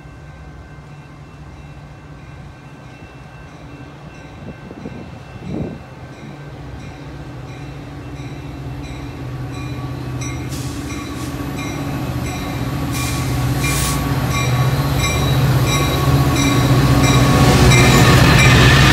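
Metra diesel locomotive approaching and drawing alongside, its engine hum and the rumble of the train growing steadily louder until it passes close by near the end. Over it, a high bell-like ding repeats evenly about twice a second, typical of a grade-crossing warning bell.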